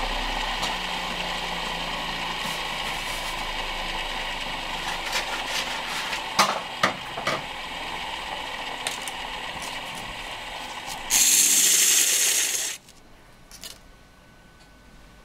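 Homemade mini wood lathe running steadily as it turns a wooden workpiece, with a few sharp clicks about six to seven seconds in. Near the end a loud hiss lasts about a second and a half, then the sound drops away to a faint background.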